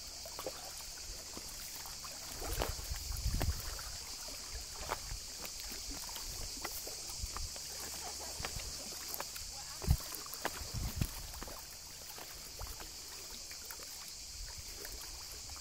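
Outdoor ambience on a handheld walk: a steady high hiss throughout, with low wind buffeting and handling bumps on the microphone and scattered footstep clicks. The bumps come in two clusters, about three seconds in and around ten seconds in, the sharpest just before ten seconds.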